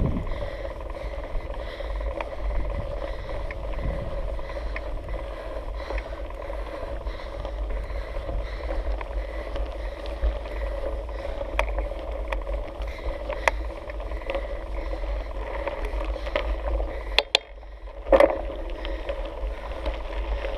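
Mountain bike climbing a gravel dirt track, recorded on a GoPro: a steady rumble of tyres and wind with scattered small clicks, and a sharper knock about seventeen seconds in.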